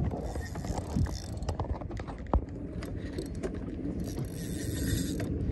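A fishing reel being cranked, its gears ticking in quick irregular clicks over the low rumble of wind and water.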